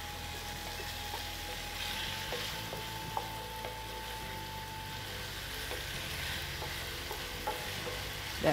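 Chopped onions and other pieces sizzling in hot oil in a non-stick pot, stirred with a wooden spoon, with a few faint taps and scrapes of the spoon against the pot.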